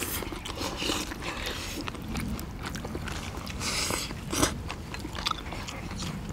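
Several people eating braised monkfish with bean sprouts close to the microphone: chewing and crunching, with chopsticks clicking against plates and bowls. A sharper click stands out about four and a half seconds in.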